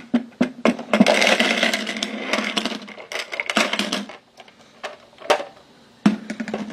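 Toy piggy bank rumbling: a buzzing rattle for about three seconds, with a string of sharp clicks and knocks around it and one loud click near the end.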